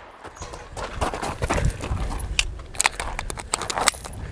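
Hurried footsteps on gravel with scattered sharp clicks and knocks from handling a pistol, between bursts of gunfire.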